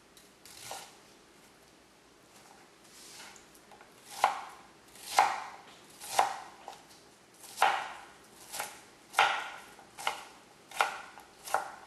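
Kitchen knife dicing an onion on a plastic cutting board. A few quiet seconds with a light stroke, then about nine chops, roughly one a second.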